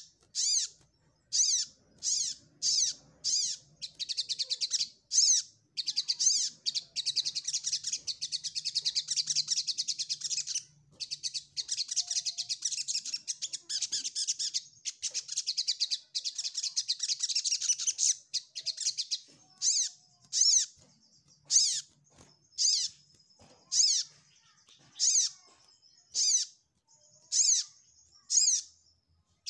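Sunbird (sogok ontong) calling to challenge a rival: sharp, high chirps about once a second, broken in the middle by long runs of fast twittering.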